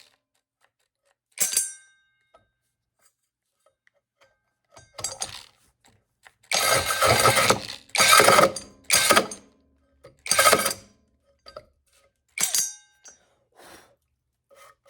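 Mellif 12-volt cordless drill turning a 5-inch hole saw through the workpiece in a series of short bursts, with sudden stops and near silence between them. The longest and loudest burst comes about halfway through.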